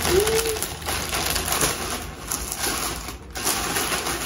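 Plastic packaging and clothing rustling and crinkling with scattered small clicks as an online clothing order is unwrapped and handled, with a short hummed 'mm' just after the start.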